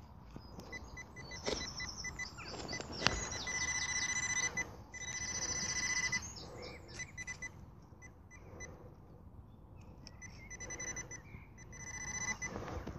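Handheld metal-detecting pinpointer probe beeping as it is worked through a plug of soil. Spaced high beeps quicken into a near-continuous tone for a few seconds, then drop back to slower beeps as the probe closes on a metal target in the soil.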